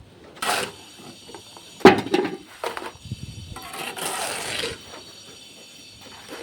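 Irregular scrapes and knocks of hand tools working wet concrete, with a sharp knock about two seconds in as the loudest sound and a longer scrape around four seconds in.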